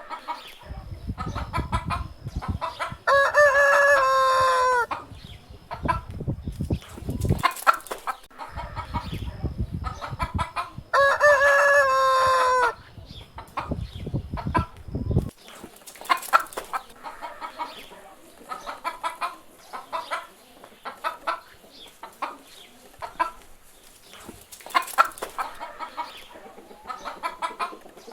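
A rooster crowing twice, long held crows about eight seconds apart that drop in pitch at the end, amid frequent short clucking from chickens. A low rumble runs under the first half and stops about halfway through.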